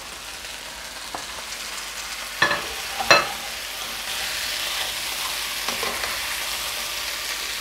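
Oil sizzling in a frying pan as raw potato chunks are stirred in among sautéed broad beans with a plastic spatula. The spatula knocks sharply twice near the middle, and the sizzle grows louder in the second half.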